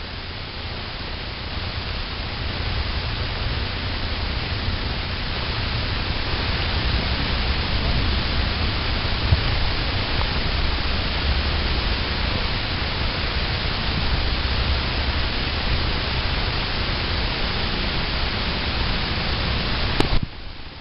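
A steady rushing noise with a heavy low rumble. It swells over the first couple of seconds, holds, then cuts off abruptly with a click near the end.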